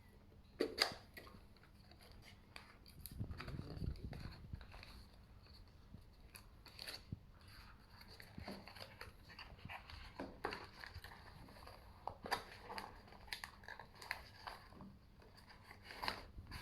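Faint handling of packaging: scattered light clicks, taps and rustles as the box and its contents are opened and moved about.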